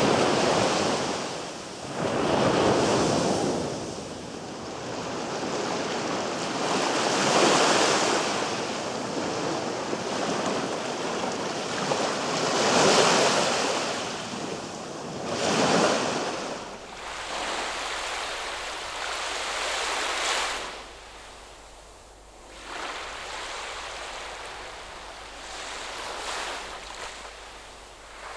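Surf: waves washing in and drawing back, swelling every few seconds, then softer and thinner in the second half.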